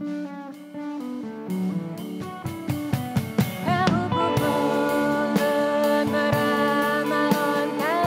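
A sape', the Bornean boat lute, plucks a melody of short notes. A band with drum kit and electric guitar comes in after a second or two, and near the middle a singing voice joins, making a fuller, steadier sound.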